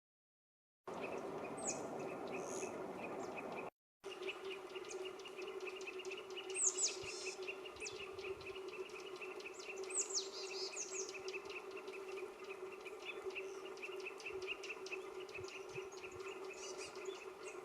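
Forest ambience: an insect trilling with a fast, steady pulse, over a steady low hum. A few high, thin bird calls sweep downward about two, seven and ten seconds in. The sound begins about a second in and cuts out briefly near four seconds.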